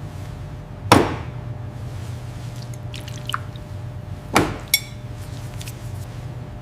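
Two sharp knocks about three and a half seconds apart over a steady low hum, with a short ringing clink just after the second knock and a few faint ticks.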